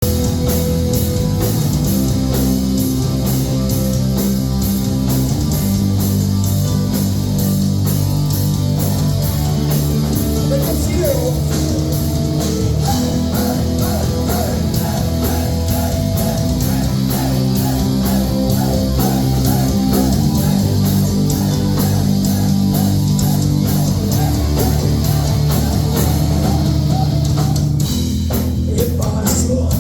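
Rock band playing: electric guitar, bass and drums, with an even, steady drum beat under sustained guitar chords.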